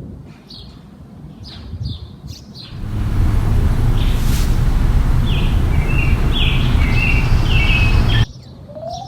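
Songbirds chirping and singing. About three seconds in, a loud low rumbling noise comes in beneath a song of short, steady-pitched notes, then cuts off abruptly near the end.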